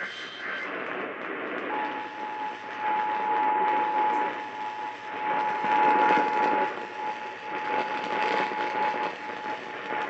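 Emergency Alert System two-tone attention signal received on a distant AM station, a steady pair of close tones that starts about two seconds in and holds nearly to the end, under heavy static and fading from weak reception.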